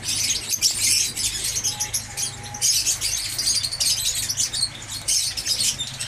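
Many small cage birds chirping rapidly and continuously in high-pitched bursts, over a steady low hum.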